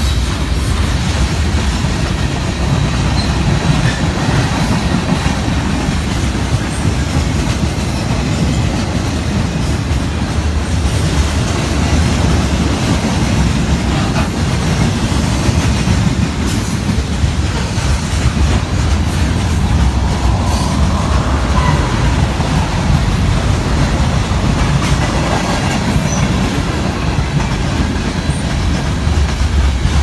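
Freight train's covered hoppers and loaded lumber flatcars rolling past at close range: a steady, heavy rumble and clatter of steel wheels on the rails.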